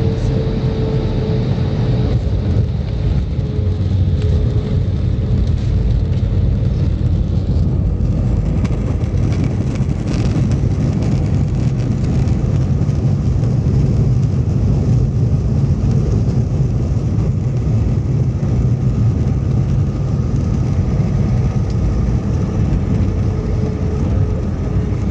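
Airbus A320 cabin noise on the ground just after landing: a loud, steady low rumble of the engines and the wheels rolling as the jet moves along the ground, with a faint steady hum.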